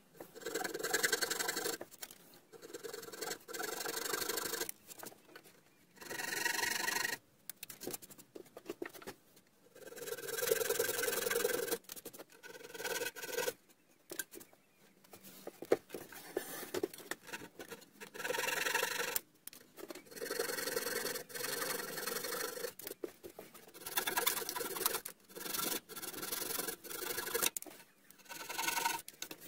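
Small pull saw trimming glued wooden plugs flush with a timber frame: bursts of sawing strokes a second or two long, separated by short pauses.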